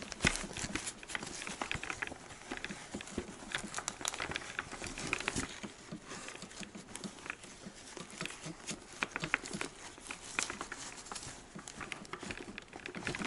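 Handling noise inside a snowmobile helmet: fabric liner and padding rustling, with many small irregular clicks and taps as the pieces are pushed and tucked into the shell.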